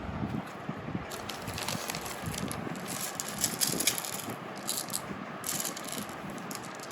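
Small multicolour aquarium pebbles rattling and clicking against one another as they are handled, a dense run of little clicks.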